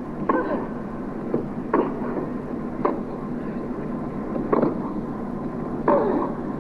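Tennis rally: a ball struck back and forth by rackets, giving sharp hits about every second and a half, with a fainter bounce between two of them, over a steady background noise.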